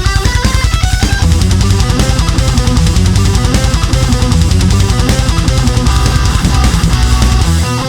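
Heavy metal music: a distorted electric guitar plays fast melodic lead lines over heavy low rhythm guitar and drums with a fast, even beat. Shortly before the end the heavy low part drops away and the notes become sparser.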